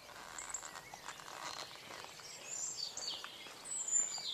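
Faint birdsong: a few high chirps and short whistles over quiet outdoor background noise, most of them in the second half.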